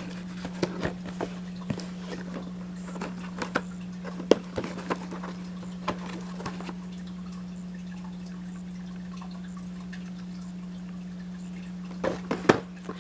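Scattered light clicks and taps of boxed and plastic-packaged products being handled and set down, over a steady low hum. The taps thin out in the middle and come as a quick cluster near the end.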